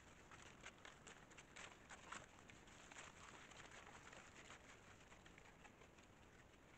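Faint crackling and rustling of dry leaf litter under a herd of white-lipped peccaries walking and rooting, many small clicks, busiest in the first half and thinning out after that.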